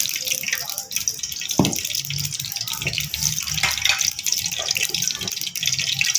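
Ghee heating in a pot, sizzling steadily with fine crackle, with a single knock about one and a half seconds in.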